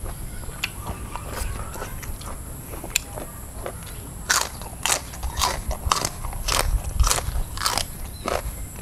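A person chewing crunchy food close to the microphone: soft mouth clicks at first, then from about halfway a run of crisp crunches about twice a second.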